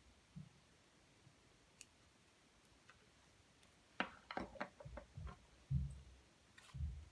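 Faint handling sounds: a few scattered ticks, then a quick run of small clicks and taps about four seconds in, followed by a few soft low thumps, from hands working with slime and makeup.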